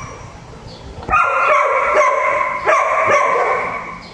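Dogs barking in shelter kennels: quieter for about the first second, then a run of barks from about a second in, one after another.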